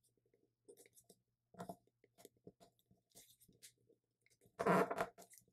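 A sheet of paper being folded and pressed into creases by hand: faint crinkles and rustles, with a louder rustle about four and a half seconds in.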